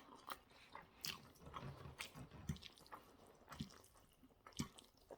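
A person chewing spaghetti bolognese up close, with soft wet mouth sounds and small clicks.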